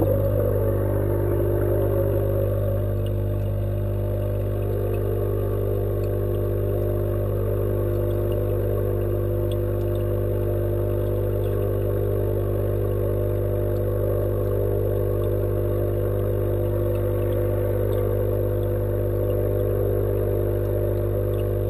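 Steady machine hum with a strong low tone, picked up by a microphone underwater in an aquaponics fish tank, with a few faint ticks scattered through it.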